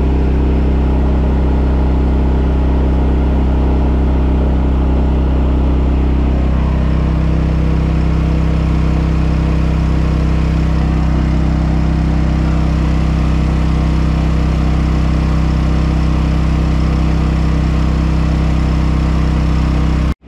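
Champion 201407 inverter generator's engine running steadily close up, under heavy load; its engine note shifts about six seconds in, then holds.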